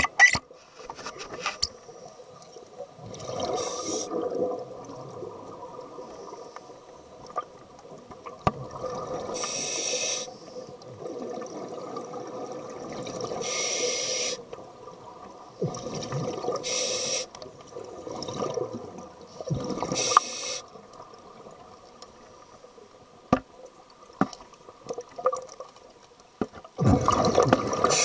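Scuba regulator breathing heard underwater through the camera housing. Short hissing inhalations come every few seconds, alternating with bursts of exhaled bubbles, and there are a few light clicks.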